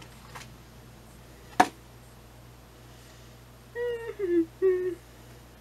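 A single sharp click about a second and a half in, then three short high-pitched voiced hums near the end, each a little lower than the last.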